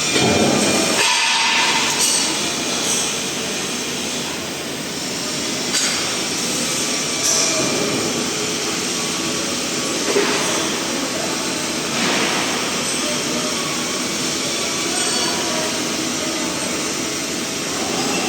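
Steady loud industrial machine noise, a broad hiss with a low hum and faint whining tones, briefly louder a few times.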